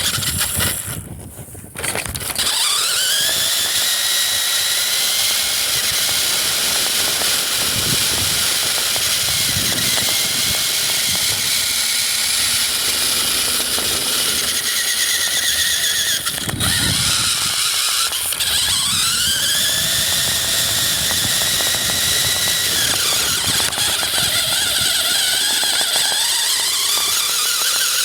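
Electric RC car motor whining, its pitch rising and falling again and again as the throttle is worked; it starts up about two seconds in.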